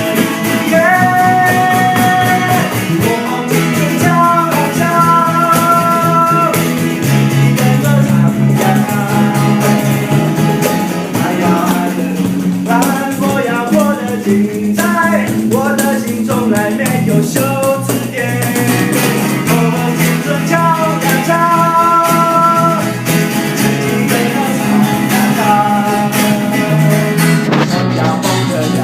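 A band playing a song together, guitar to the fore: a melody of held notes in repeating phrases over a steady bass line.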